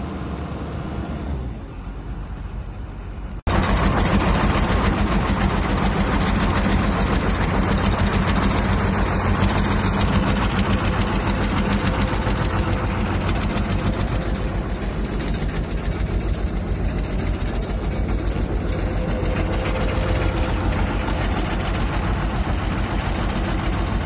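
Ingersoll Rand SD-110D road roller's diesel engine running. It is fainter for the first few seconds, then about three and a half seconds in it jumps to loud and close, running steadily with a low, even drone.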